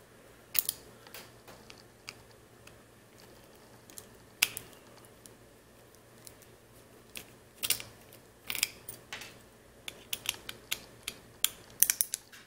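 Small screwdriver working tight screws out of a circuit board: irregular light clicks and scrapes of the metal tip on the screw heads, with a quick run of clicks near the end.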